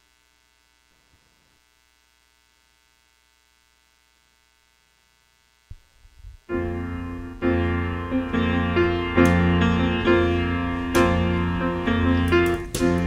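Near silence, then about six and a half seconds in a piano starts a song intro with sustained chords. A few sharp hits join in near the end.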